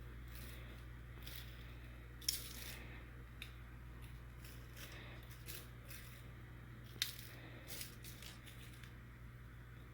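Spice shaker being shaken and tapped, giving faint irregular clicks and rattles, with two sharper clicks about two seconds in and near seven seconds in. A steady low hum runs underneath.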